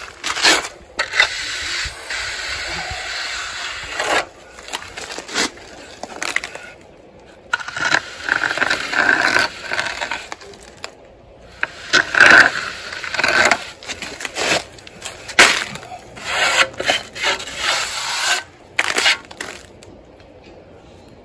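A plasterer's darby scraping over fresh cement plaster (stucco) in several long strokes with pauses between them, a rasping scrape with a few knocks, flattening the coat.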